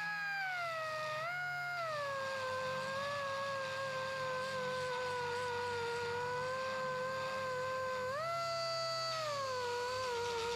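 Air belt sander (Astro Tools 3036) whining at a steady high pitch as it sands a sheet-steel flange. The pitch sags as it takes load, rises briefly a little past eight seconds in when the load eases, then settles lower again.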